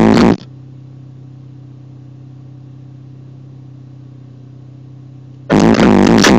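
Loud bass-heavy music from a car's subwoofer system cuts off about a third of a second in. A Mini Cooper's engine idles steadily with a low, even hum, and then the music comes back hard about five and a half seconds in.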